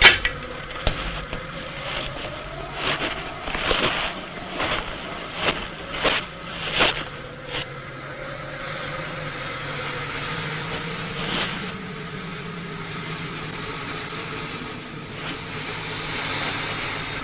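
JNR Class 9600 steam locomotive working hard uphill: slow, uneven exhaust chuffs for the first half, then steadier running and steam noise with one more chuff.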